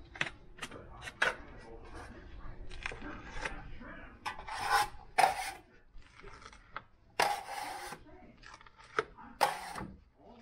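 A hand tool scraping against a hard surface in about four strokes of half a second to a second each, from about four seconds in, after a run of light clicks and taps.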